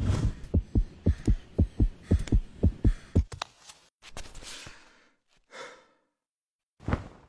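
Deep, rapid thumps, about four a second, each dropping in pitch, like a racing heartbeat, for about three and a half seconds, then a few short, soft hissing swishes.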